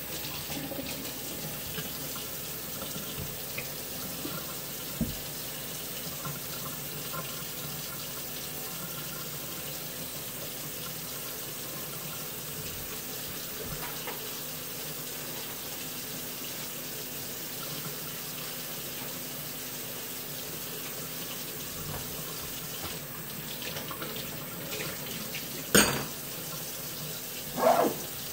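Kitchen faucet running steadily into a stainless steel sink. Near the end come two short, sharp knocks about two seconds apart.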